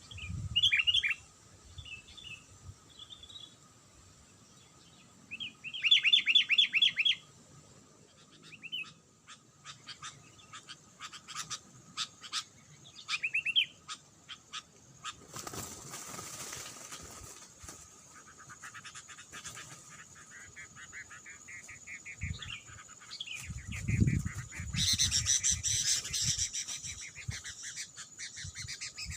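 Sooty-headed bulbuls calling in short bubbly chirping phrases, with bursts of rustling and wing flapping later on and a run of sharp clicks in between.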